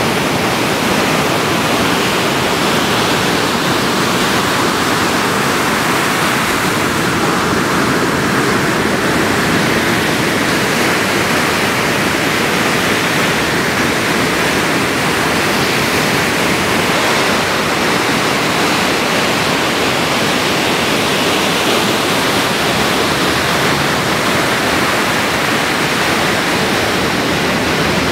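Steady rush of breaking ocean surf, an even noise with only slight slow rises and falls.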